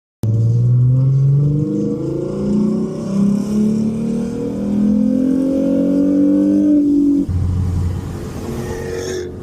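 Car engine accelerating hard, its pitch climbing in steps as it shifts up. About seven seconds in it cuts abruptly to a steady low drone.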